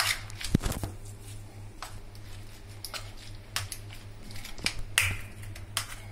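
A metal spoon clinking and scraping against a steel bowl while sliced potatoes and onions are stirred into a thick chickpea-flour batter, in irregular sharp clicks.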